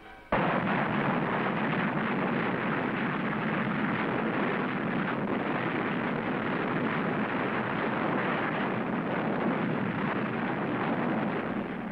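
Dense, steady roar of battle noise on an old film soundtrack. It starts abruptly just after the narration stops and fades near the end, with no separate shots standing out.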